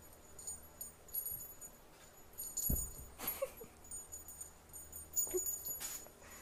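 A kitten moving about with a small bell jingling in short bursts, a soft thump about two and a half seconds in, and a couple of faint short mews.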